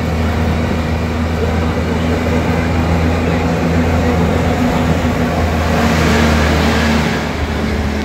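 Parking-lot tram under way: a steady engine drone with road noise. A rushing noise swells briefly near the end.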